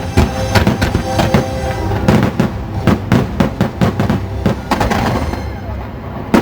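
Fireworks bursting in a rapid string of sharp bangs over loud show music, the bangs coming thickest in the middle and thinning out near the end.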